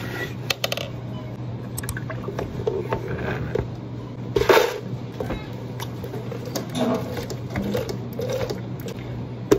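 Plastic blender pitcher being handled and loaded with ice: knocks and rattles, with a loud clatter about four and a half seconds in, over a steady low hum of café equipment.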